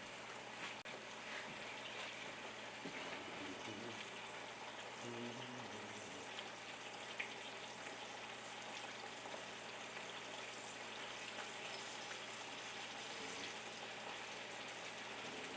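Peppers and onions frying in oil in a pan: a faint, steady sizzle, with a single small click about seven seconds in.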